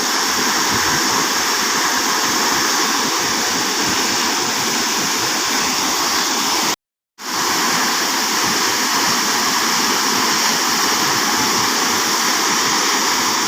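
Waterfall rushing with a steady, even roar of water; about halfway through it cuts out to complete silence for a split second, then fades straight back in.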